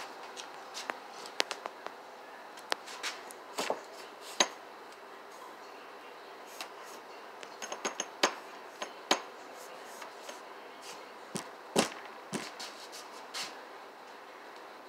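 Domestic cat chewing a mouse: irregular sharp crunches and clicks, some in quick clusters, over a faint steady background hiss.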